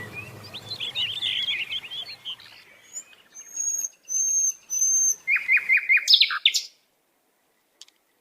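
Songbirds singing: a run of quick chirps, then three clear, high whistled notes about half a second apart, then four short falling chirps. The birdsong cuts off suddenly about seven seconds in.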